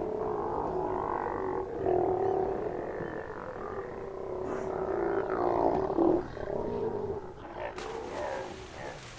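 Sea lions calling from a colony, several animals at once in long, overlapping growling roars that thin out in the last few seconds.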